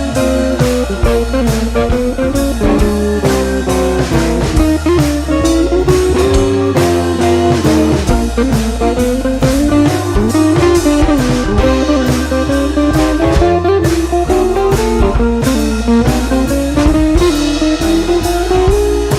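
Background music: a guitar-led blues track with a steady drum beat.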